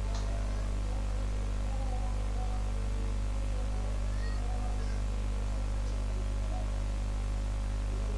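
Steady electrical mains hum in the recording, deep and unchanging.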